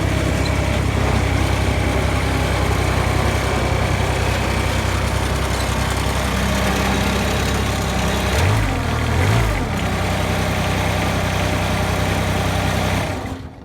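Woods 6215 diesel mower engine running steadily at idle. It revs up and back down twice in quick succession about eight and nine seconds in, and the sound drops away near the end.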